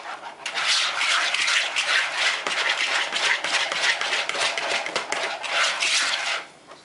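Wire whisk beating a thick cream cheese filling in a mixing bowl: fast, steady scraping strokes against the bowl to work the lumps out. It stops shortly before the end.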